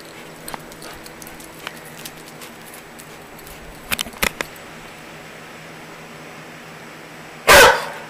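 Black standard poodle gives one loud, short bark near the end, after a few short sharp clicks about halfway through.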